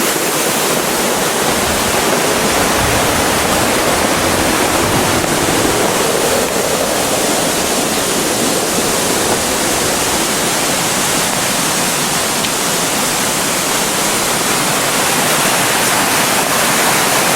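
Loud, steady rush of falling and flowing water, an even hiss with no breaks.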